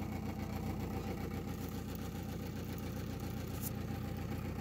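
Large 3D-printed pulse motor running steadily on about 21–22 volts, its eight-magnet rotor spinning past air-core coils. It gives a steady hum with fast, even pulsing.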